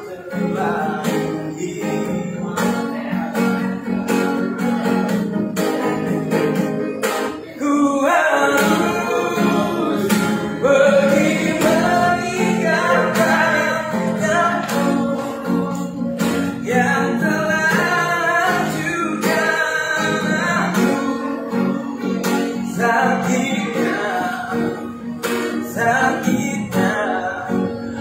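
A man singing to his own strummed acoustic guitar, a lone voice over steady chords.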